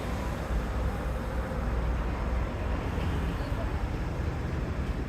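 Busy street ambience: a steady traffic rumble, heaviest in the first half as a vehicle engine runs close by, under an indistinct murmur of voices.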